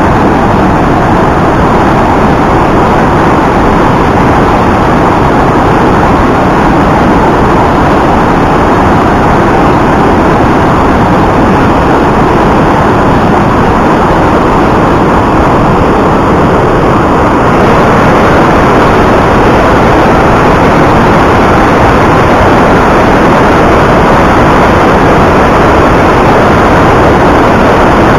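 Rhine Falls waterfall heard at close range: the loud, steady rush of a huge volume of water pouring over the rocks, heavy in the low end.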